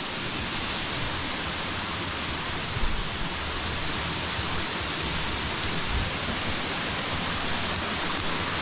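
Waterfall rushing steadily, running full and fast after rain at a fall that is usually dry.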